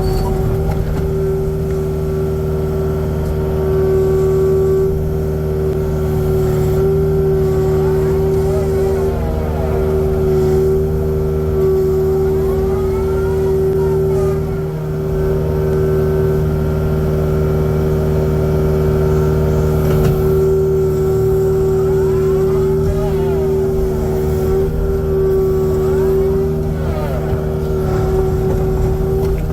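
Kubota excavator's diesel engine running steadily under load while the machine works, with a whine that rises and falls in pitch several times as the hydraulics move the arm and bucket.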